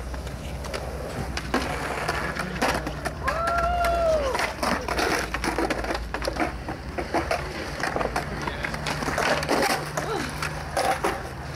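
Skateboards rolling and clacking on a concrete skate park, with scattered sharp knocks over a steady low rumble. A single rising-and-falling call stands out about three seconds in, and voices are faint in the background.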